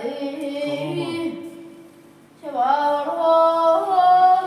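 Solo devotional singing in a high voice, likely a boy's: a sung phrase, a short pause, then long held notes that bend smoothly in pitch.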